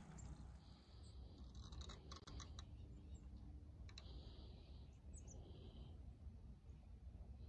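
Near silence over a faint low rumble, broken by a quick run of light clicks about two seconds in and a single click about four seconds in.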